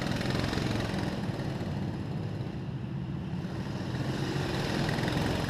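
Go-kart engines running steadily as the karts wait in line.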